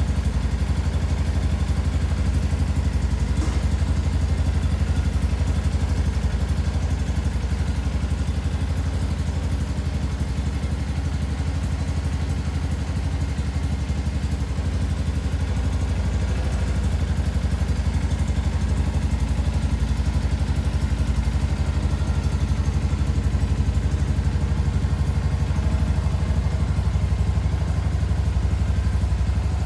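Shelby Renz 200 motorcycle's 200 cc engine idling steadily, with an even exhaust beat and no revving.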